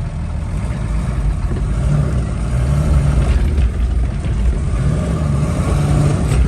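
Off-road 4x4's engine revving under load as the vehicle is driven through rough ground to keep momentum, getting louder over the first few seconds.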